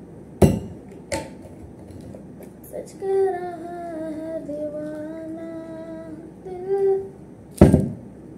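A woman humming a tune in long, slowly gliding held notes, over a few sharp knocks as things are handled; the loudest knock comes near the end.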